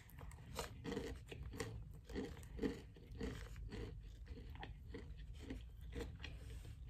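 Chewing a mouthful of fried chicken sandwich, the crisp breading crunching with each chew, about two chews a second.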